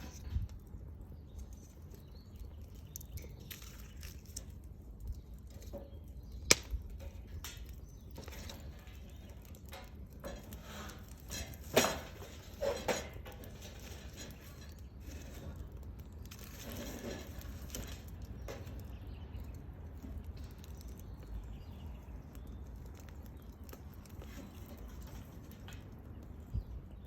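Wood bonfire crackling, with scattered small clicks and two sharp loud pops, about six seconds in and again about twelve seconds in.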